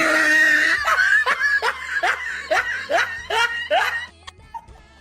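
A person laughing in a quick run of short pitched bursts, about three a second, dying away about four seconds in.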